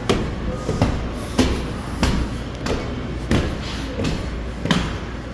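Footsteps on stairs, a knock about every two-thirds of a second, over a steady low rumble.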